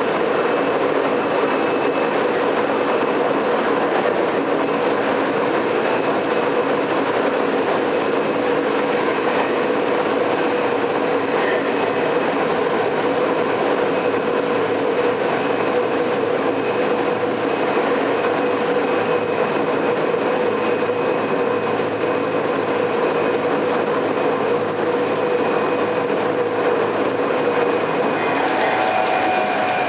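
Tokyo Metro 03 series subway train heard from inside the car, running at a steady speed: an even rumble of wheels and running gear with a faint steady whine. Near the end a new higher tone comes in.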